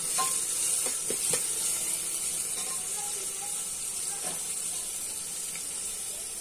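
Sliced onions sizzling steadily in hot oil in an aluminium pressure cooker as they are stirred with a steel ladle, being fried until golden. A few short scrapes of the ladle against the pot come in the first second and a half and once more after about four seconds.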